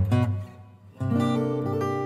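Background music of acoustic guitar strumming chords. One chord dies away, and a new chord is strummed about a second in and left ringing.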